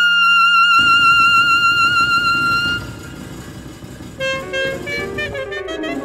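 Live contemporary chamber music for saxophone, percussion and piano. A saxophone holds a high note with vibrato over a dense low rumbling texture, then stops a little under three seconds in. Short, quicker pitched notes follow.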